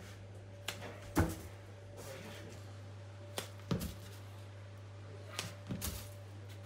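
Short, soft knocks as pieces of dough and hands are set down on a digital kitchen scale and a wooden worktable, about seven in three small clusters, over a steady low hum.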